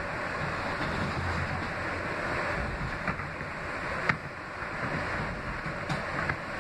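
R160B subway car running along the track, heard from inside the car: a steady rushing and rumbling of wheels on rail, with a few sharp clicks, the loudest about four seconds in.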